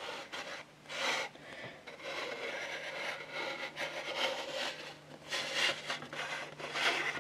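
A plastic action figure on its plastic display stand being turned by hand on a tabletop: a scratchy rubbing and scraping that comes and goes in uneven surges.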